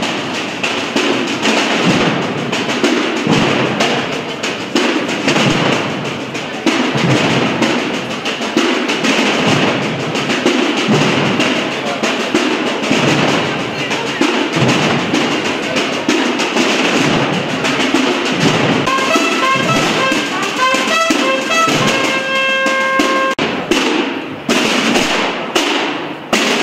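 Massed processional drums, snare drums and bass drums (tambores and bombos), playing a dense, continuous roll. About two-thirds of the way through, a brass instrument plays a short phrase of quick notes ending on a held note. The drumming breaks up near the end.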